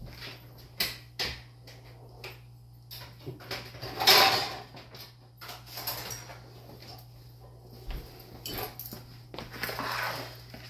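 Kitchen clatter: scattered knocks and utensil noises, with a louder clatter about four seconds in. Near the end a spoon stirs and scrapes through seasoned chicken pieces in a mixing bowl. A steady low hum runs underneath.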